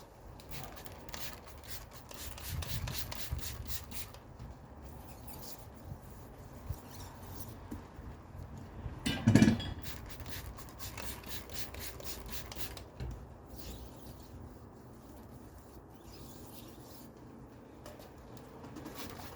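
Soapy water being rubbed onto a new tire's bead to lubricate it for mounting: runs of short scrubbing strokes, with one louder knock about nine seconds in.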